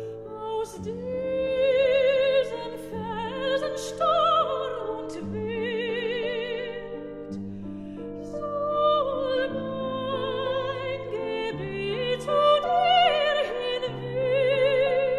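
Background music: an operatic voice singing held notes with strong vibrato over a sustained low accompaniment.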